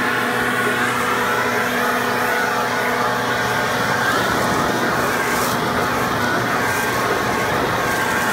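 Gas backpack leaf blower running at a steady speed, blowing leaves off roof shingles toward the gutter.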